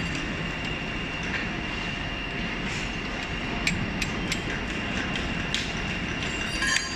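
Steady workshop machinery noise with a constant high whine, and a few light sharp clicks as steel rollers and spacers are set into the slewing ring's raceway.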